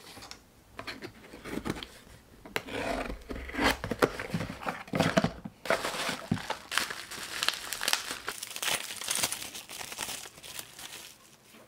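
Hands unboxing a small taped kraft cardboard box: irregular tearing, rustling and crackling of tape, cardboard flaps and packing, then the crinkle of a plastic bubble-wrap bag near the end.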